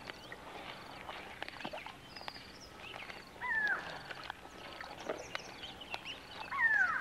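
Nile crocodile hatchlings calling: two high chirps that each slide downward in pitch, about three and a half seconds in and again near the end.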